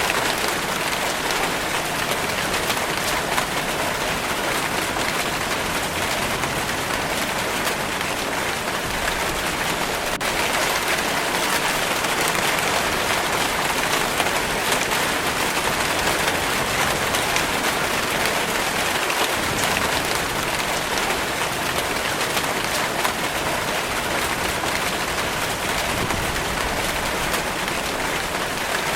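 Steady rain falling: an even hiss of countless drops that holds at the same strength throughout, with no let-up.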